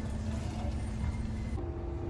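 Train carriage running along the track, a steady low rumble with a faint hum.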